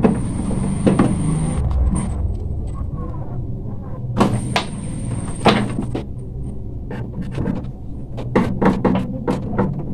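Clicks and knocks of screws and sheet-metal parts being handled and fitted while an air cooler's housing is reassembled, over a steady low hum. A few sharp knocks come about a second in and around the middle, then a quick cluster near the end.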